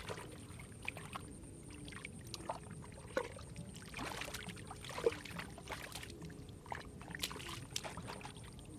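Hands working through shallow muddy water, with irregular splashing, sloshing and wet slaps.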